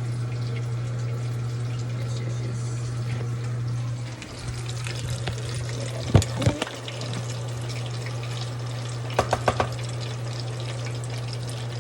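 Tortillas frying in hot oil, a steady sizzle over a constant low hum. A couple of loud knocks come about six seconds in, and four quick taps about nine seconds in.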